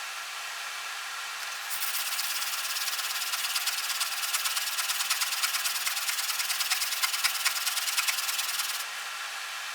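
Steel plane iron being sharpened, rubbed back and forth in quick even strokes, beginning about two seconds in and stopping near the end. A steady hum runs underneath.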